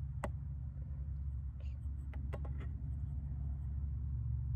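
A few light metallic clicks and taps as a small metal tin is tipped against a steel canteen cup to shake hot chocolate mix in: one sharp click near the start, then a quick cluster of taps in the middle, over a steady low rumble.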